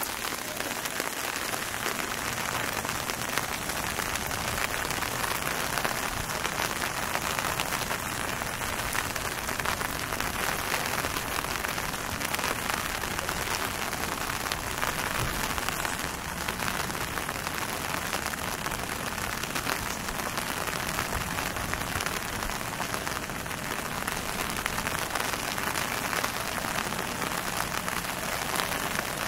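Steady rain falling on surfaces: a dense, even hiss made of countless small drop impacts.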